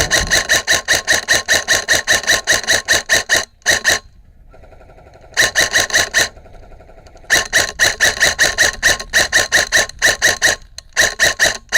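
Airsoft gun firing on full auto in repeated bursts, a rapid even rattle of shots. The first burst lasts about three and a half seconds, and the bursts are split by pauses of one to two seconds.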